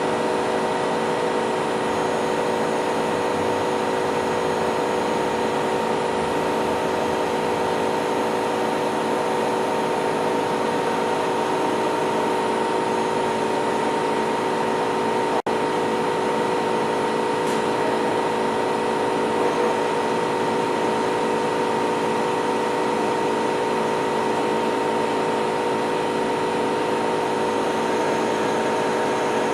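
Steady hum of machinery running, with several constant tones over an even noise; it drops out briefly about halfway through.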